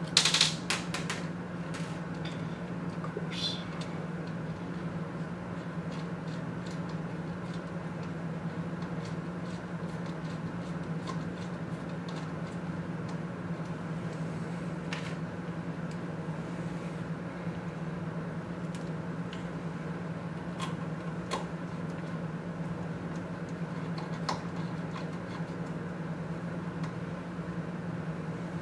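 Small clicks and taps of screws and a metal bracket being handled and fastened, with a loud cluster of clicks at the start and single clicks scattered after, over a steady low hum.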